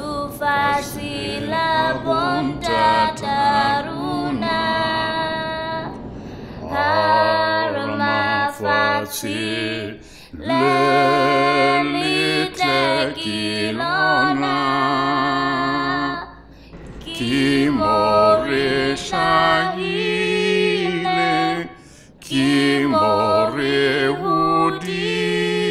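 Women's voices singing together in phrases, with short breaks between the phrases.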